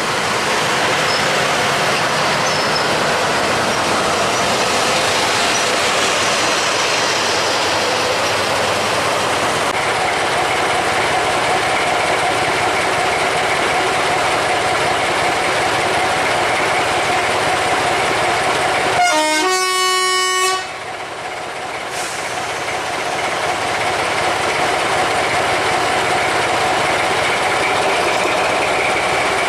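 Diesel locomotives running along the line, with a steady noise of engines and rails. About two-thirds of the way through, a locomotive horn sounds once in a two-tone blast of about a second and a half. Right after it the noise drops for a moment, then the engine noise builds back up.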